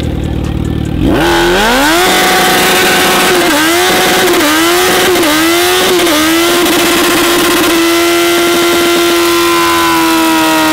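Suzuki Hayabusa's 1300cc inline-four revved hard during a burnout, the rear tyre spinning and smoking on wet concrete. The revs climb about a second in, rise and fall a few times, then are held high and steady for several seconds before starting to drop at the end.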